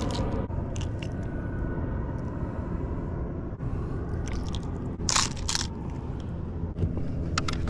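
Close handling noise: crunching and scraping against the microphone over a steady rumbling haze, with scattered clicks and a sharper scrape about five seconds in.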